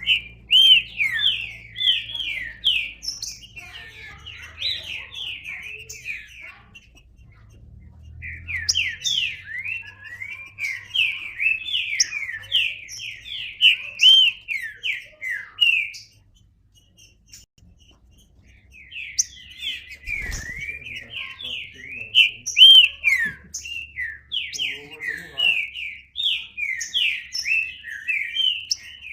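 Green-winged saltator (trinca-ferro) singing: three long runs of quick, sweeping notes, with short pauses about seven and seventeen seconds in.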